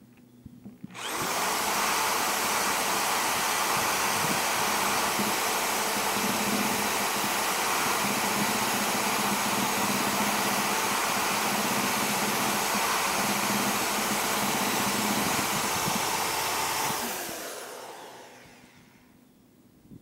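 Drill spinning a rubber decal-eraser wheel against the school bus's painted side panel, rubbing off decal. It starts about a second in, runs steadily, and winds down over the last few seconds.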